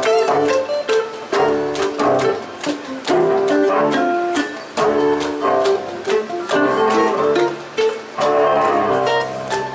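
Live folk band playing an instrumental passage: fiddle melody over strummed acoustic guitar, with djembe and drum beats.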